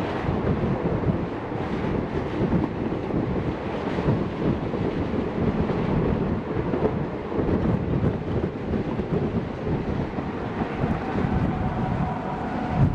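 Wind buffeting the microphone over the rumble of a moving passenger train, heard from on board. A faint steady tone comes in near the end.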